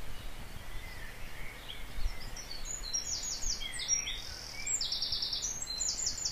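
Small songbirds singing, with scattered chirps and then quick trills of short repeated high notes from about halfway in, over low steady background noise.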